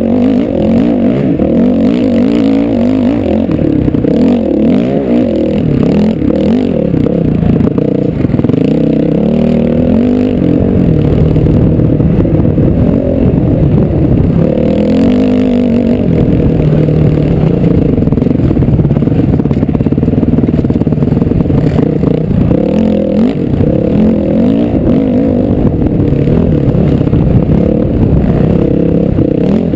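Off-road motorcycle engine under load, revving up and down as the rider works the throttle and shifts, heard close from the rider's own helmet camera.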